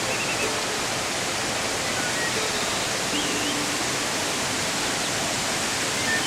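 Mountain waterfall rushing: a steady, even roar of falling water.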